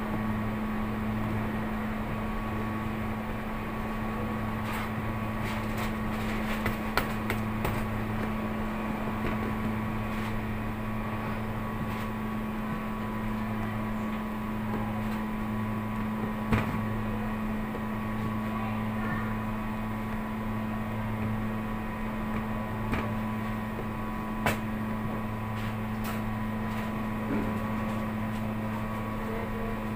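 Steady mechanical hum of running kitchen equipment, with a wavering low undertone. A few light knocks and clicks are scattered through it.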